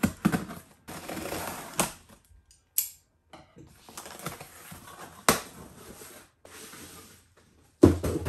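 Scissors cutting through packing tape on a cardboard box, with sharp clicks and scraping of cardboard as the flaps are pulled open, then plastic bubble wrap rustling near the end as the wrapped item is lifted out.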